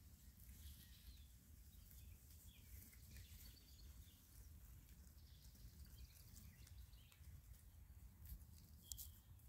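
Near silence: faint outdoor ambience of distant birds chirping over a low, steady rumble, with one clearer chirp near the end.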